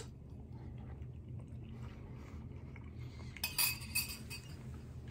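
A metal spoon clinking a few times against a glass bowl about three and a half seconds in, as gel cubes are scooped out.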